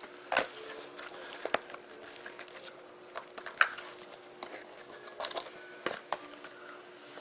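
Cardboard trading-card boxes being handled on a table: scattered light taps and clicks with a brief rustle, over a faint steady hum.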